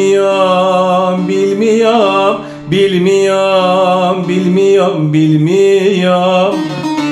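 A man singing a drawn-out, wavering melodic line in Turkish folk style, accompanied by a plucked bağlama (saz). The voice drops out briefly about two and a half seconds in.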